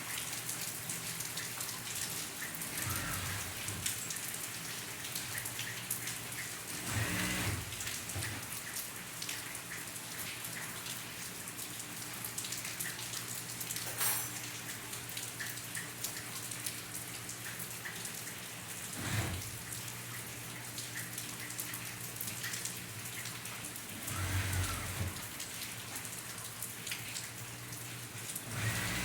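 Steady rain falling, with many small drop impacts. There are a few louder swells and one sharp tap about halfway through.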